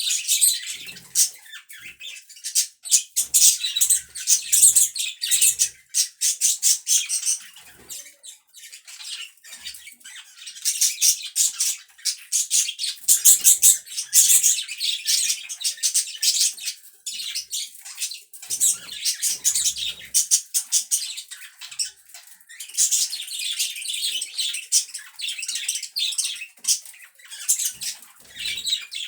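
Pet budgerigars chattering and warbling, a dense run of rapid high-pitched chirps that comes in waves, with brief lulls around 8 s, 18 s and 22 s in.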